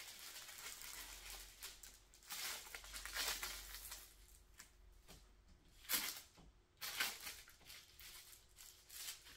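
Clear plastic top-cover film on a diamond painting canvas crinkling and rustling as it is peeled back and smoothed down by hand, with two sharper crackles past the middle.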